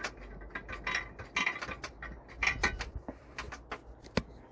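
Height-adjustable carving stand being worked: a run of irregular mechanical clicks and knocks over a low rumble, with one sharp click near the end.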